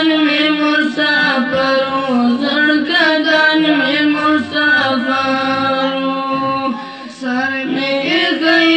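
Young boys singing an unaccompanied chant-like song into a microphone, the melody bending and held on long notes, with a brief break about seven seconds in.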